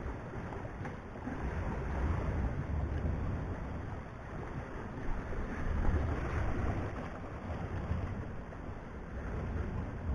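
Wind buffeting the microphone, with small waves washing against the rocks of the shore. The rumbling noise swells and eases about every four seconds.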